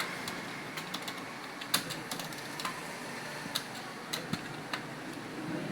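Computer keyboard keys clicking in irregular keystrokes during a typing test, over a steady background hiss.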